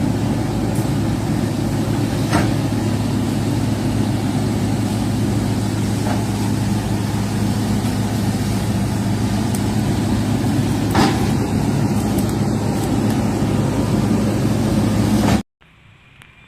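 Heavy vehicle engine running steadily with a low hum, a few short knocks in between; it starts and stops abruptly.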